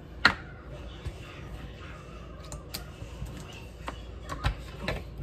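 Scattered clicks and taps from handling a plastic ketchup squeeze bottle, its cap being worked, with the loudest sharp click just after the start.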